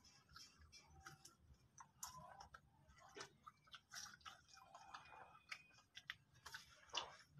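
Faint crunching and chewing of a crunchy snack, heard as many small, irregular clicks and crackles, with one louder crack near the end.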